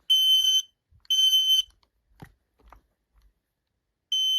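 Kidde KN-COSM-IBA combination smoke and carbon monoxide alarm sounding its fire alarm: high-pitched beeps of about half a second each, two in quick succession, then a pause of about two and a half seconds with a couple of faint clicks, then the next beep starting near the end. The beeps come in groups of three, the temporal-three pattern that signals smoke or fire.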